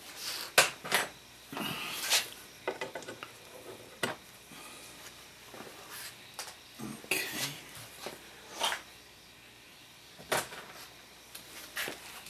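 Irregular metallic clinks and small knocks of hand tools and metal hardware against an old wooden clock case as screws and nails are worked out of it, the loudest about half a second in.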